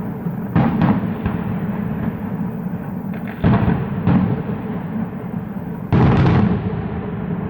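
Fireworks bursting: a string of sudden booming bangs, the loudest about halfway through and again near the end, with a continuous low rumble between them.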